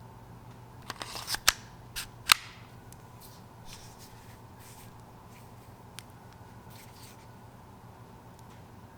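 Airsoft pistols being handled: a quick run of sharp clacks and rustling, the loudest just after two seconds in, then one faint click near six seconds.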